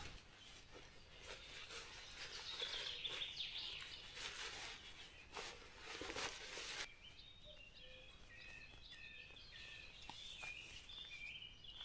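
Faint songbirds singing: short, high chirping notes repeating, clearest in the second half, with a few soft rustles and clicks before that.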